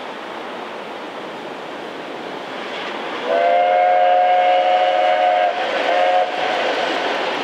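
SNCF 141.R.1244 Mikado steam locomotive coming closer, its running noise growing louder, then sounding its steam whistle in a chord of close notes: one long blast of about two seconds, a brief break, then a short second blast.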